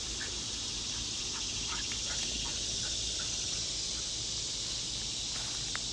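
Steady high-pitched buzzing of a summer insect chorus, with a few faint short chirps scattered through it.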